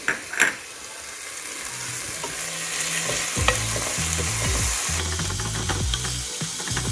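Sliced onions and ginger-garlic-green chilli paste sizzling in hot oil in a pan while being stirred. There are two sharp knocks right at the start, then a steady sizzle with scraping and tapping from the stirring.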